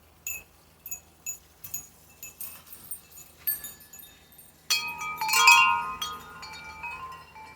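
Wind chimes ringing: scattered single strikes at first, then a louder cluster of overlapping tones about five seconds in that slowly dies away.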